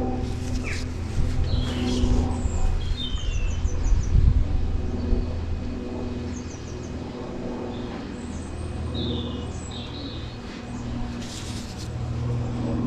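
Small birds chirping in short repeated phrases over a steady low hum, with a few brief knocks and rustles from handling about a second or two in and again near the end.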